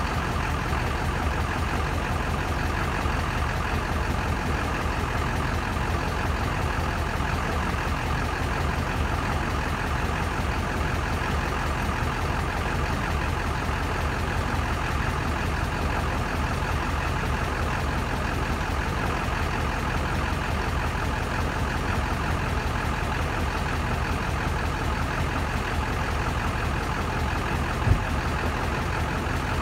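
2001 GMC Sierra's 6.6-litre Duramax V8 turbo-diesel idling steadily, running on its newly replaced injectors. One sharp knock near the end.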